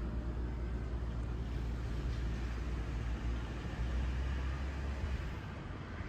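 Tobu 60000 series electric commuter train standing at the platform, giving a steady low rumble and hum that drops away about five seconds in.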